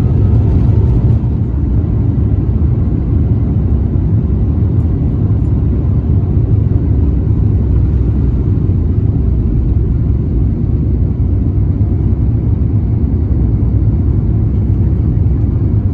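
Cabin noise of an Airbus A350-1000 taking off, heard from inside the cabin: its Rolls-Royce Trent XWB engines at takeoff thrust and the roll down the runway make a loud, steady, deep rumble through the takeoff run and lift-off.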